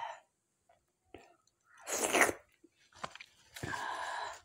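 Close-miked eating mouth sounds of a person eating mutton curry and dhido: a sharp, loud noisy burst about two seconds in, a few small clicks, then a longer noisy mouth sound near the end.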